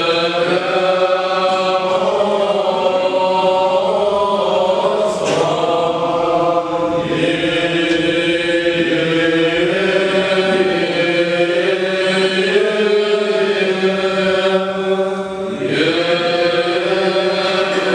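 Orthodox liturgical chant sung by men's voices in long held notes, with one low note held steady under the moving melody. The melody breaks briefly between phrases about five seconds in and again near the end.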